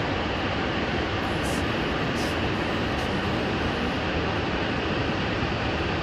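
Waterfall: water pouring and rushing in a steady, unbroken roar.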